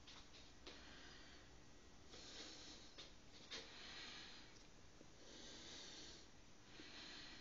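Near silence with faint breathing close to the microphone, one soft breath about every second and a half, and a single light click about halfway through.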